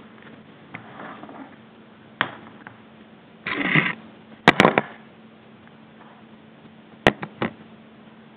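Camera handling noise: a brief scraping rustle followed by a cluster of sharp clicks and knocks, the loudest about halfway through, and three more quick clicks near the end. A faint steady electrical hum runs underneath.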